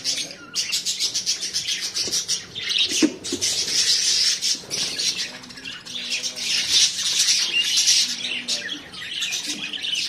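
A colony of budgerigars chattering: many birds calling at once in a continuous, rapid, high-pitched warble with scattered squawks.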